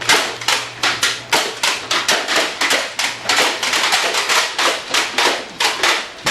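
Nerf Gatling gun firing foam arrows in rapid succession: a quick, fairly even run of sharp puffs and clacks, about three to four a second.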